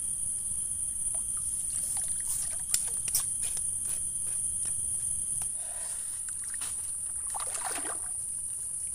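Water splashing and trickling in lake shallows as a mesh keepnet is handled, from about halfway on. A steady high insect drone runs underneath, and two sharp clicks sound about three seconds in.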